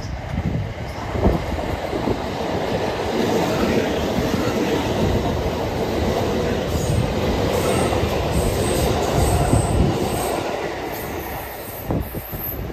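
Kintetsu 9000 series and 5211 series electric train, coupled together, running into the station alongside the platform, its wheels clattering over the rail joints. The sound builds over the first few seconds and eases off about ten seconds in.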